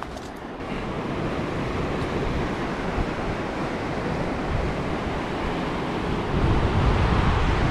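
Wind rushing and buffeting the microphone, the buffeting growing heavier about six seconds in.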